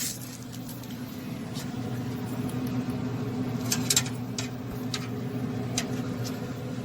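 Steady hum of a Pit Boss Pro Series 1100 pellet grill's fan running at temperature, with a few light clicks and taps as ribs are set on the grates.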